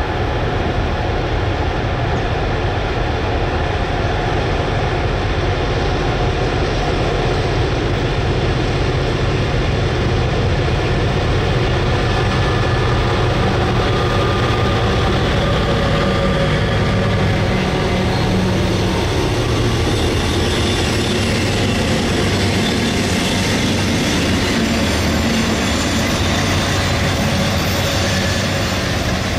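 A group of diesel-electric freight locomotives at the head of a heavy manifest train approaches and rolls past close by, their engines running under load in a deep, steady drone. Later the engine note eases into the rumble of wheels on the rail as the trailing units and the first cars go by.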